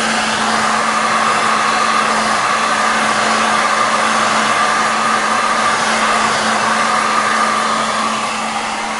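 Electric heat gun running steadily: a constant rush of air over a steady motor hum, heating the phone's edges to soften the glass adhesive.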